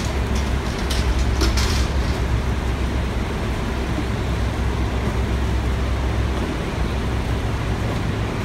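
Mack MR garbage truck's diesel engine running steadily with a low hum, with a few short clatters from cardboard and boxes thrown into the rear-loader hopper about a second in.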